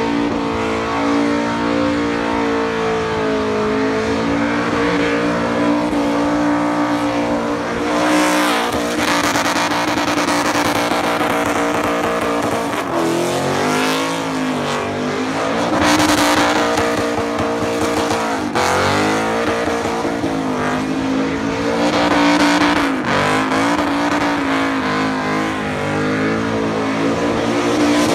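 Toyota Land Cruiser farm ute doing a burnout: the engine is held at high revs, its pitch dipping and climbing back several times, over the hiss and squeal of spinning tyres.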